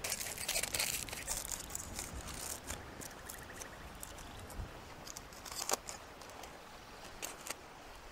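Aluminium foil crinkling as it is pressed by hand around a raw turkey's leg and wing tips, busiest in the first three seconds, then scattered soft rustles and clicks.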